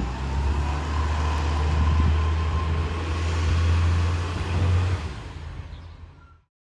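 Dennis garbage truck's diesel engine running with a steady low rumble, which dies away over the last second or so until the sound ends.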